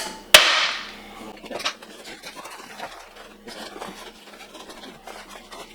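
A few sharp snaps or knocks near the start, the loudest trailing off over most of a second, then light scattered rustling as a pond liner is handled and pressed into a wooden trunk.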